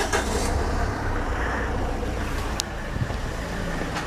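Street traffic: cars driving past with a steady low rumble of engines and tyres, and a brief click about two and a half seconds in.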